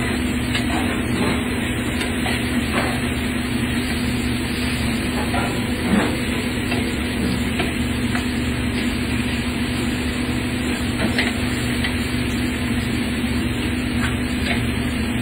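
Steady machine hum at one constant pitch under an even hiss, with scattered light clicks and clatter.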